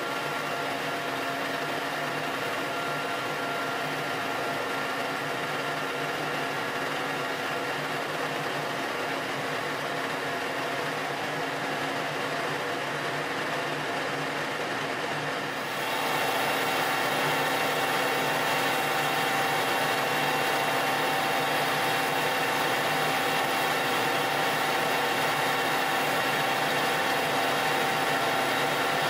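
Colchester Master 2500 lathe running, with a carbide insert turning a steel bar: a steady machine hum with several even tones. About halfway through it gets a little louder and brighter.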